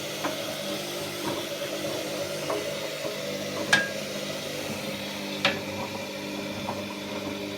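Steady hum of a running washing machine, with a few light knocks and one sharp metallic clink a little past halfway, then another knock about two seconds later.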